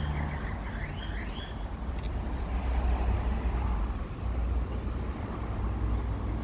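Steady low rumble of a motor vehicle running, with small birds chirping during the first second or so.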